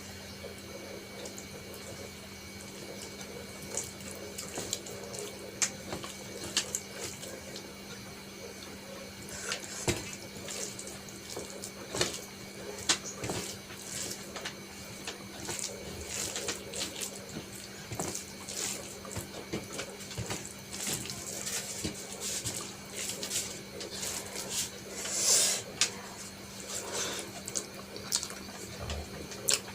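Close-miked wet eating sounds from a mouthful of rice and curry being chewed: moist squelches with many short sharp clicks and smacks, loudest about 25 seconds in.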